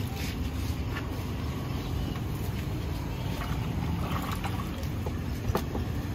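Water being splashed and dribbled by hand over a large catla fish on a wooden stall counter, with a few small wet knocks, over a steady low outdoor rumble.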